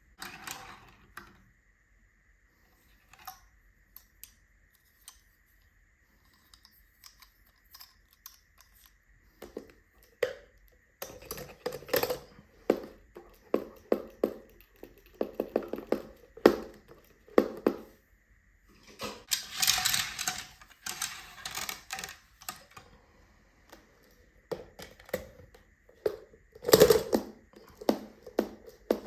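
Small toy cars clicking and clattering as they are handled and set down. Only a few clicks for the first several seconds, then busier from about ten seconds in, with a dense rattle around twenty seconds in.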